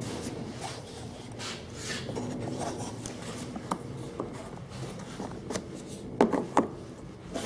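Plastic handling noise from a RIDGID wet/dry vac's hose being worked into place around its storage clips: rubbing and scraping of hose against the plastic housing, with small clicks and a couple of sharper knocks a little after six seconds in.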